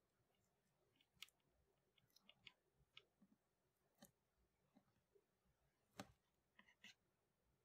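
Faint, scattered clicks and small scrapes of wire leads and a plastic twist-on wire connector being twisted together by hand, with the sharpest click about six seconds in.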